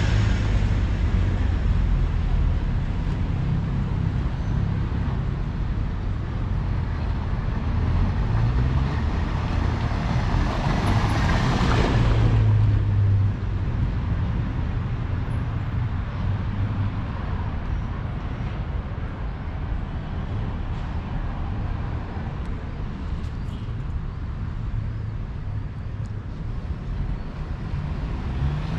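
City street traffic: motor vehicles running past with a steady low rumble. One vehicle passes close, swelling in loudness until about thirteen seconds in, then falling away suddenly.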